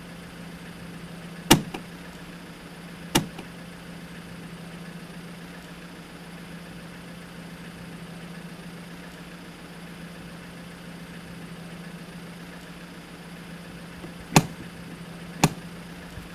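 Two sharp snaps of briefcase latches opening, under two seconds apart, then two more snaps near the end as the latches are closed, over a steady low hum.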